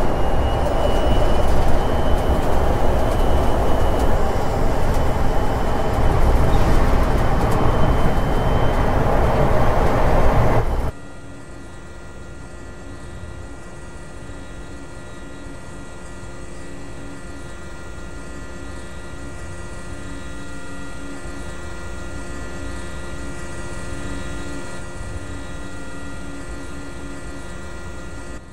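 Battery-electric Mercedes-Benz eActros 600 truck driving by: loud tyre and road noise with a faint high steady whine. About eleven seconds in it cuts suddenly to a much quieter steady hum of several held tones.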